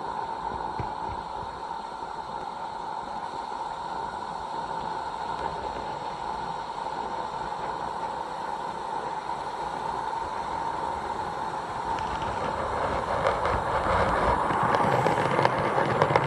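16 mm scale live-steam model train running on its track with a steady hiss. It grows louder from about twelve seconds in as it approaches, and a fast clicking of wheels on the rails sets in as the cars pass close near the end.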